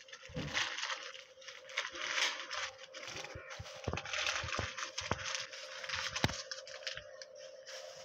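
A kitten rustling and scratching about behind plant pots: irregular crackling and crinkling with a few sharp clicks, over a faint steady hum.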